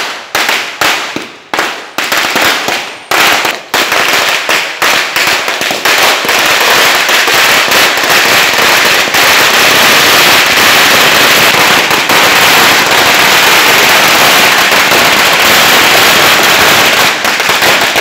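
A long string of firecrackers laid along the road going off: separate sharp bangs at first, then from about six seconds in a dense, continuous rapid-fire crackle of bangs that thins slightly near the end.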